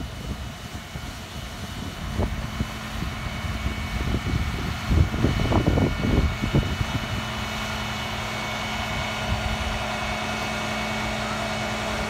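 A diesel engine from the work trucks runs steadily, a constant low hum with a faint whine above it. About four to seven seconds in, a cluster of louder irregular low thumps and rustles rises over the engine.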